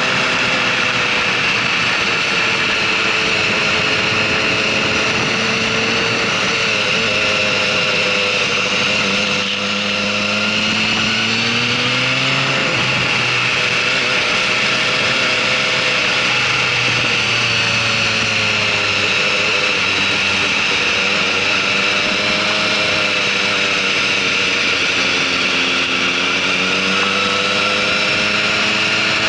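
Motorcycle engine running on a lap of a track, its note rising and falling with the throttle and dropping sharply about twelve seconds in, over a steady hiss.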